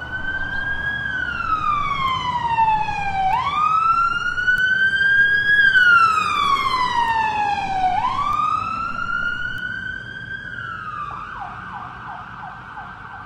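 Ambulance siren in a slow wail, its pitch rising and falling about every four to five seconds; near the end it switches to a quieter, rapid yelp.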